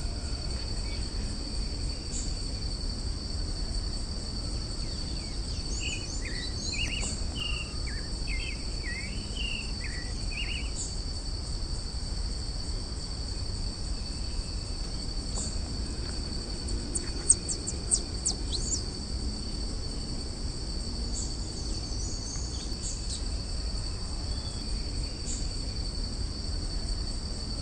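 Steady high-pitched insect drone over a low background rumble. About a quarter of the way in, a bird gives a short run of chirping notes, and a little past the middle a cluster of sharp clicks stands out as the loudest sound.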